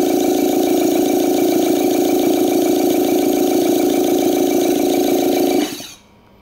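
VAF Instruments B5025 flowmeter running on compressed air for a function test: a steady loud whirring hum with fine rapid ticking and air hiss as the air drives the meter. A little before the end the air is shut off and the sound falls away quickly.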